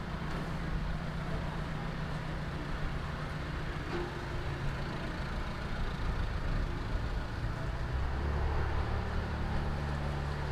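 A low, steady engine rumble that grows stronger about eight seconds in.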